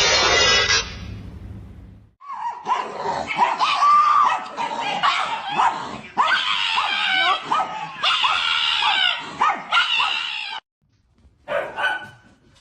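A dog whining and yipping: about eight seconds of high cries that rise and fall in pitch. A loud noisy hiss fades out over the first two seconds before the cries start.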